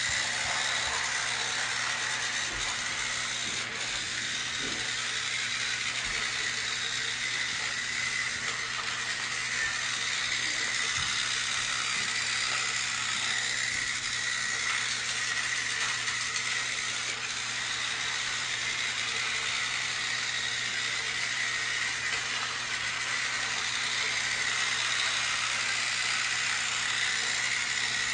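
Battery-powered toy trains running on their track: a steady whir of small electric motors and gears that does not change.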